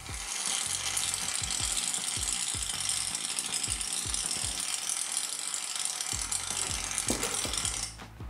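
Aerosol can of shaving foam spraying a continuous stream of foam, a crackling hiss that cuts off shortly before the end.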